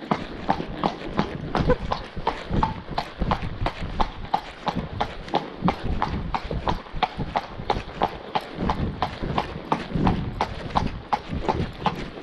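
A ridden horse's hooves clip-clopping on a hard village road, a steady, even beat of about three or four hoof strikes a second.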